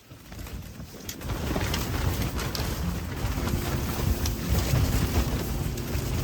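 Strong wind gusting over the microphone, a heavy low rumble that builds about a second in and then keeps on, with scattered sharp ticks on top.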